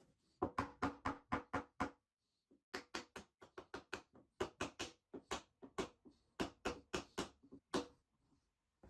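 A quick run of sharp knocks, about five a second, each with a short ringing tone. The run pauses for about half a second around two seconds in, then carries on until near the end.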